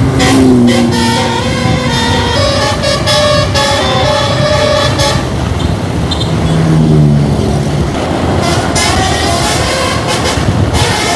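A bus's telolet 'basuri' multi-tone musical horn playing a tune of stepped notes over the running bus engine, with a short break around halfway and a lower gliding note before the tune resumes.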